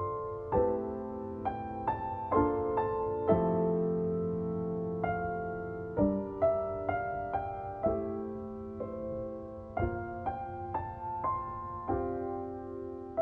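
Background music: a piano playing slow chords and single notes, each struck and left to ring away.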